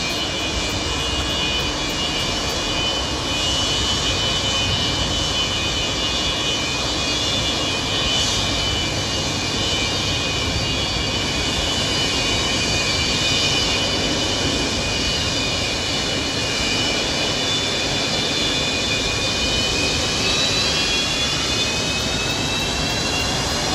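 Antonov An-124-100's four D-18T turbofans running at taxi power: a steady jet rush with a high whine. Near the end the whine tones rise and spread apart.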